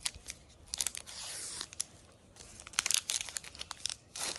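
Chocolate bar packaging being opened by hand: paper and foil wrapper tearing and crinkling in a run of short crackles, with a longer tear about a second in.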